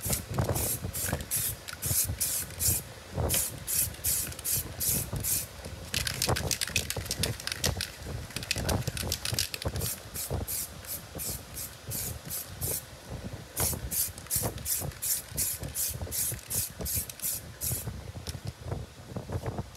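Aerosol spray can hissing in short, quick bursts, a few a second, closer together in the middle, as a coat is dusted onto bare sheet metal. The spraying stops about two seconds before the end.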